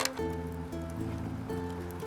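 Background music, with a sharp crackle from the wood fire right at the start.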